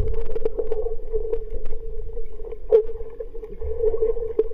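Swimming pool heard from underwater: muffled water noise with a steady hum and scattered clicks and pops, the sharpest click near the middle.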